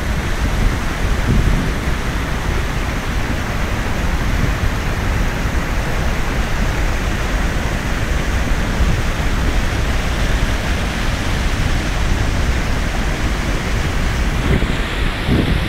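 Kalambo Falls heard from the brink: a loud, steady rush of river water pouring over the cliff edge, with a deep rumble under it.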